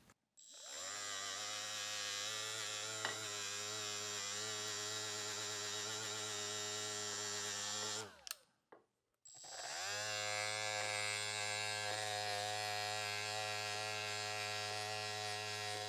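Milwaukee Fuel electric die grinder with a green Scotch-Brite wheel, running steadily as it polishes a metal hand-control knob. It spins up, runs for about seven seconds, winds down, then spins up again about a second later.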